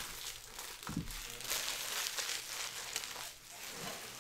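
Foil trading-card pack wrappers being crumpled and handled, a busy crinkling crackle, with a soft thud about a second in.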